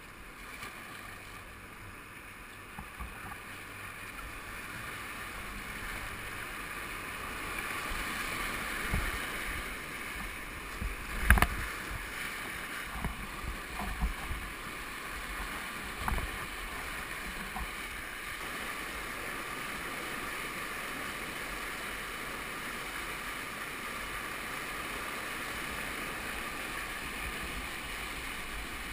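River whitewater rushing around a kayak, growing louder over the first several seconds as the boat runs into the rapid. Sharp knocks and splashes against the boat come between about eleven and sixteen seconds in, the loudest one about eleven seconds in.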